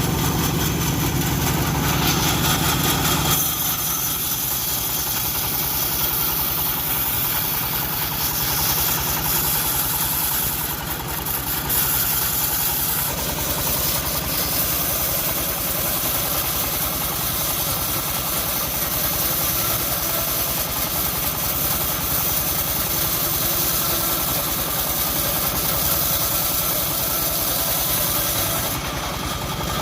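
Engine-driven homemade bandsaw mill running steadily while sawing an old teak log. About three seconds in, the low engine hum drops away and a high hissing sawing sound takes over.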